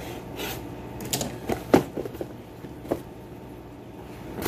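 Cardboard mailer box being handled and opened by hand: a string of short scrapes and knocks, the loudest a sharp one a little under two seconds in.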